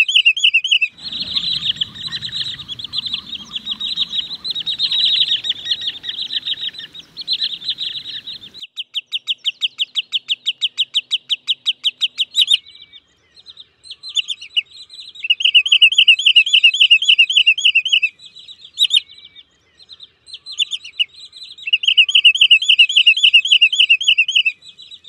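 Wood sandpiper calling in bursts of quick, repeated rising-and-falling piping notes. In the middle comes a fast, even run of about ten short notes a second. A low rumble lies under the first third.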